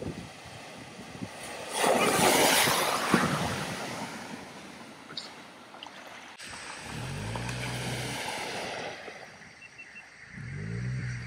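A vehicle driving through deep floodwater: a loud rush of splashing water about two seconds in, then a vehicle's engine running, its pitch rising and falling, in two stretches near the end.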